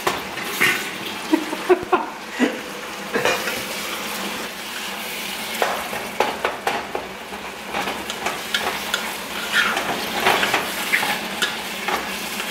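Chopped vegetables sizzling as they fry in a skillet, stirred with a wooden spatula that scrapes and clicks against the pan at irregular intervals.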